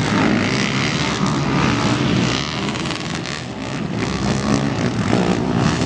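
Racing quad (ATV) engines revving hard, their pitch rising and falling as they accelerate and pass, with a brief drop in loudness about three and a half seconds in.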